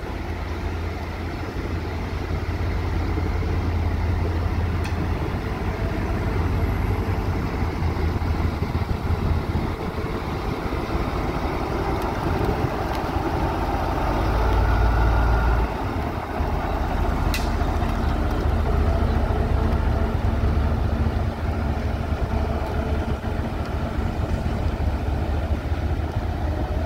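Diesel shunting locomotive running as it hauls a rake of railcars past, a steady low engine drone that is loudest as the locomotive goes by about halfway through. A single sharp click comes shortly after.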